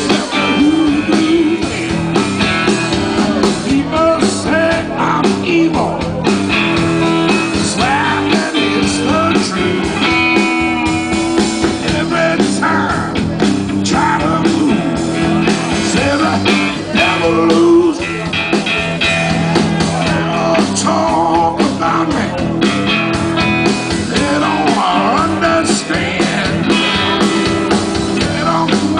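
Live blues-rock band playing loudly: two electric guitars over a drum kit.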